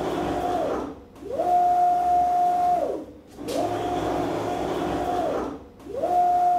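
CNC router gantry travelling back and forth on its rack-and-pinion drive, four moves of about two seconds each, the drive whine rising in pitch, holding steady and falling on each move. The moves alternate between straight-toothed racks, which add a grinding noise, and helical racks and gears, which run smoother.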